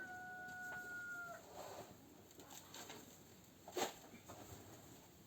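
A rooster crowing, ending on a long held note that stops about a second and a half in, followed by a faint knock near the end.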